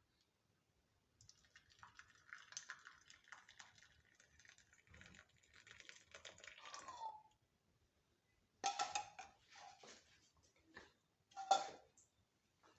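Hot masala chai being poured from the pan into cups: a faint, crackly trickle for about six seconds. Then two sharp clinks of kitchenware, the second near the end the louder.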